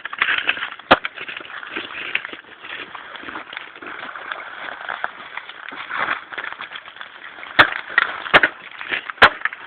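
A few sharp knocks: one about a second in, then three close together near the end, over a steady crunching, rustling noise.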